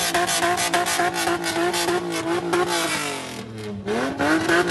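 A Toyota 2JZ 3.0-litre inline-six in a Datsun drift car is held at high revs with a rapid stutter during a tyre-smoking burnout. About three seconds in the revs fall away briefly, then climb sharply again near the end.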